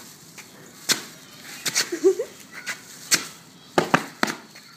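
Sharp taps and knocks, about seven of them, as a springer spaniel puppy pounces and scrabbles at a stone on paving, with a short gliding whine from the puppy about two seconds in.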